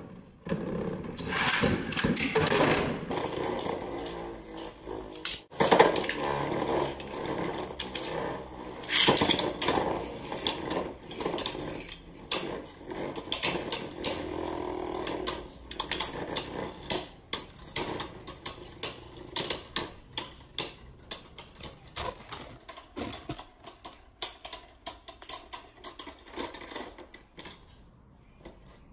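Two Beyblade Burst spinning tops whirring in a plastic stadium, with many sharp clacks as they hit each other and the stadium wall. The whirr fades and the clacks thin out as the tops slow, and the sound dies away as they stop near the end.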